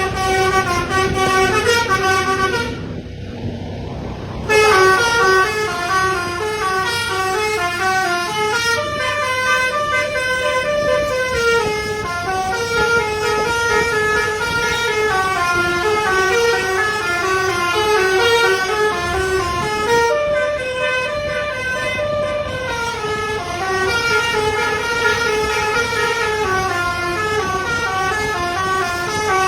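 A bus's telolet horn, a musical air horn with several trumpets, playing a fast melody of notes stepping up and down in repeating runs. It goes on almost without a break, with a short quieter stretch a few seconds in.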